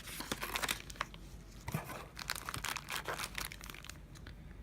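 Crinkly packaging rustling and crackling in irregular bursts as items are handled and taken out of a subscription box, thinning out near the end.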